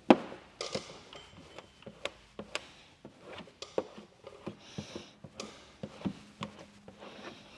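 Squeegee working wet paint protection film down on a truck fender: irregular sharp clicks and taps, the loudest right at the start, with a couple of short swishing strokes.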